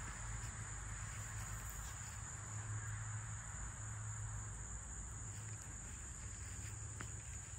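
Steady high-pitched insect chirring, like crickets, with a low steady hum underneath.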